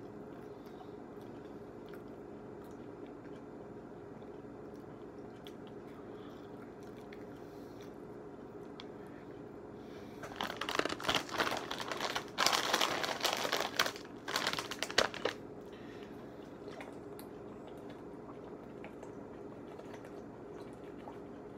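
A foil snack-chip bag crinkling loudly for about five seconds midway, with crunching in among it, over a steady low background hum.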